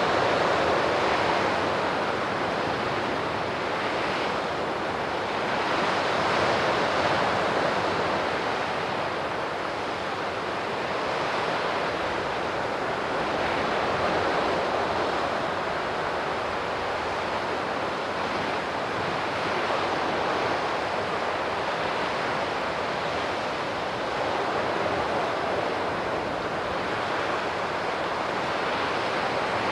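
Sea surf washing onto the shore, a steady rush that swells and eases slowly every several seconds.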